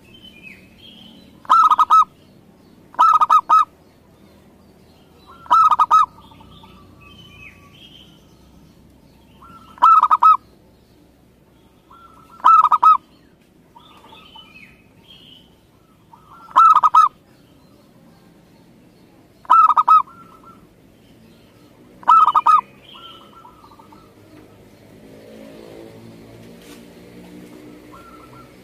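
Zebra dove (perkutut) cooing: eight loud, rapidly pulsed coos a few seconds apart, with fainter high chirps from other birds in between. A faint low drone begins near the end.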